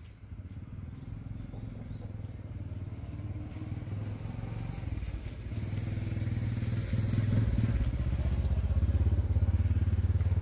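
A vehicle engine running with a low, pulsing rumble, growing steadily louder and loudest near the end.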